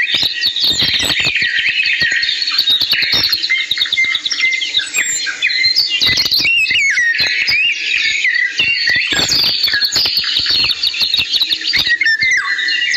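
Many small birds chirping and twittering at once in a dense, unbroken chorus of short rising and falling calls, with scattered clicks among them.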